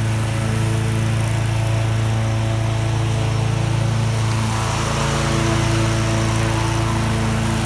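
Exmark Turf Tracer 36-inch hydro walk-behind mower, its Kawasaki FS481V V-twin engine running steadily as the mower drives across the lawn.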